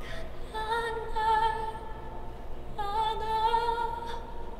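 A woman singing a ballad live, holding two long high notes with vibrato, one after the other.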